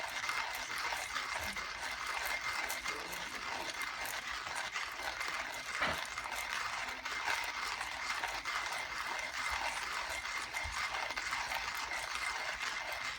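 Hunt Brothers manual coffee grinder being cranked steadily, coffee beans crunching and cracking between its ceramic burrs. This is the middle of grinding a full load of beans.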